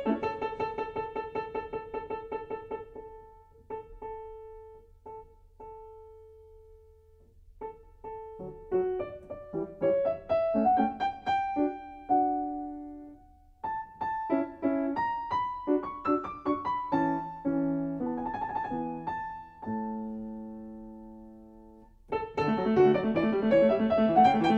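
Background solo piano music: a rapidly repeated note at the start, a quieter, sparse passage, then melodic runs, a few held chords, and busier, louder playing near the end.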